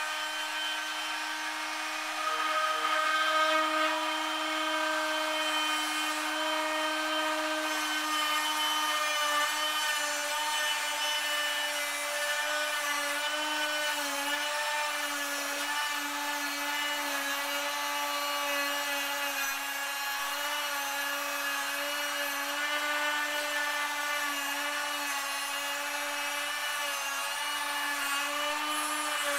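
Wintersteiger Discman electric ski edge tuner running, its spinning discs grinding along a ski's steel edge at a 2-degree bevel. A steady motor whine with a grinding hiss gets louder about two seconds in, and its pitch wavers slightly as the discs bear on the edge.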